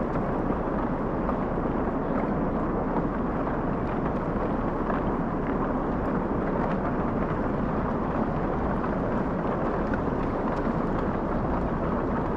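Slush ice and small ice floes drifting down a river, grinding and crackling against each other in a steady rushing noise, like a locomotive.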